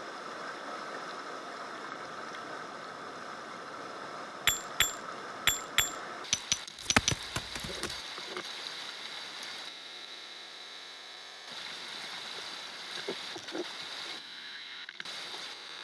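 Shallow rocky creek burbling steadily. About four seconds in comes a quick run of sharp, ringing knocks, hard objects struck together as things are handled among the stream rocks, and a few softer knocks follow near the end.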